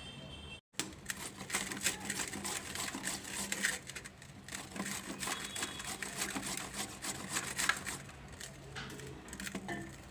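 Wood fire crackling in a brick stove: a dense, irregular run of small snaps and pops.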